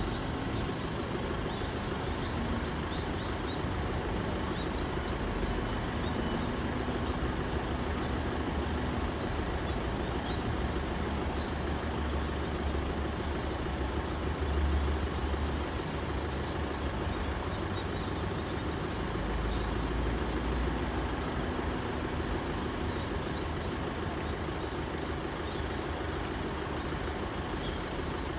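Steady outdoor background hiss with a low rumble, with several short, high, falling bird chirps scattered through the later part.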